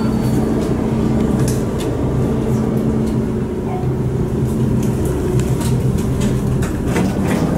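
Interior of an Alstom Metropolis metro car on Budapest line M4 at a station platform: a steady electric hum from the train's onboard equipment, with light clicks and rustles from passengers by the door.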